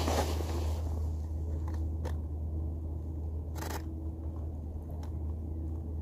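Camera shutter firing: a couple of single clicks about two seconds in, then a short burst of several clicks a little later, over a steady low rumble.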